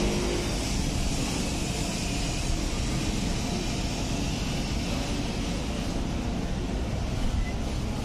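Steady background noise: an even low rumble with hiss, with no distinct events.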